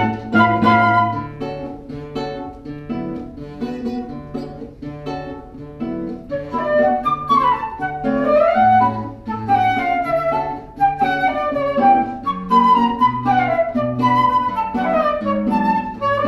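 A small chamber ensemble playing live: a melodic line with sliding, bending notes over short repeated bass notes.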